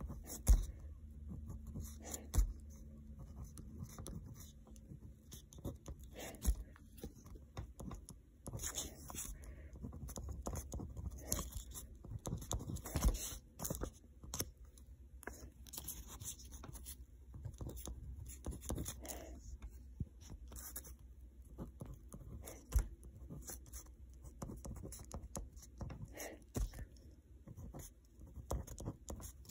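A pen writing on a card on a hard tabletop: irregular scratchy strokes with short pauses between letters, and several sharp knocks.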